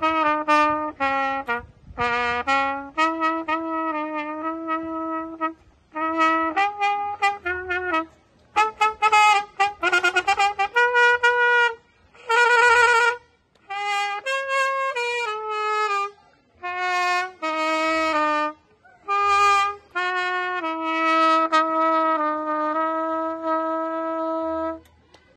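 Solo trumpet playing a carol melody unaccompanied, in short phrases separated by brief pauses, with a wavering note about halfway through and a long held note near the end.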